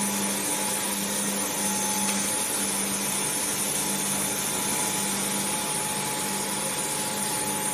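Steady rushing air noise over a constant hum and a faint high whine, from the vacuum and air equipment of a V-process vacuum sand-moulding line.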